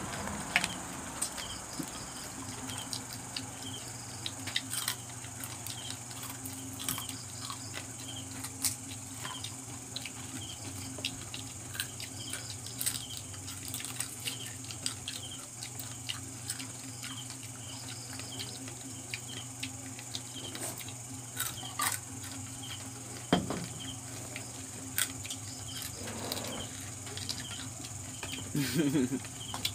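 Chewing and crunching of deep-fried crab, with scattered short cracks of shell being broken by hand, over a steady high chirring of crickets and a low steady hum.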